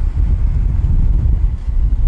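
Wind buffeting the microphone: a loud, irregular low rumble.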